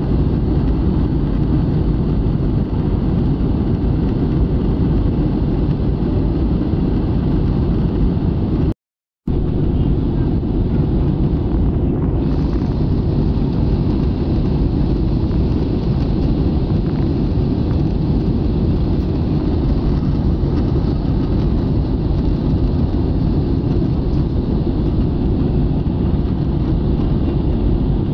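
Steady roar of an Airbus A320-family jet airliner's engines and airflow, heard inside the cabin in cruise or descent. The sound drops out completely for about half a second roughly nine seconds in, then comes back unchanged.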